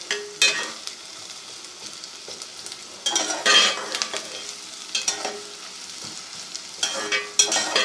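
Sliced onions sizzling as they fry in a metal pot over a high flame, stirred with a metal spatula that scrapes the pot in a few strokes, the loudest about three seconds in and again near the end.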